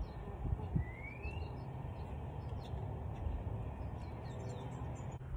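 Outdoor street ambience: a steady low rumble with a few soft low thumps early on, and a single short rising chirp of a bird about a second in.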